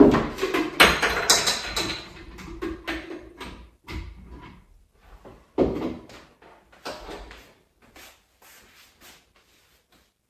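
A run of knocks and clatter from objects being handled, loudest at the very start and again about five and a half seconds in, dying away near the end.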